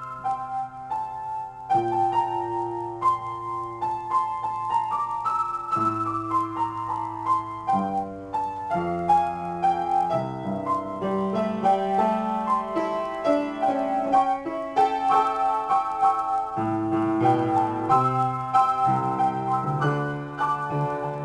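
Upright piano being played in a free improvisation: chords and held bass notes under a moving upper line, the notes sounding continuously.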